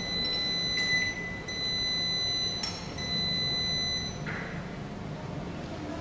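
Electronic beeper of a Glen GL 672 built-in microwave's control panel sounding three long, high beeps of about a second each, ending about four seconds in, over a faint low hum.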